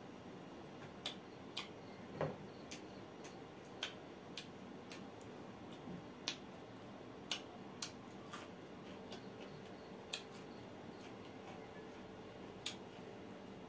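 Eating sounds of a man chewing roasted mutton pieces and picking them off the plate by hand: about a dozen short, sharp clicks and smacks at irregular intervals over a faint steady hiss.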